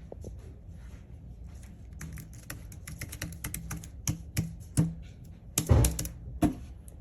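Keys of a slim aluminium Lekvey Bluetooth numeric keypad being typed on: a run of quick clicks that gets denser about two seconds in, with a heavier thump near the end.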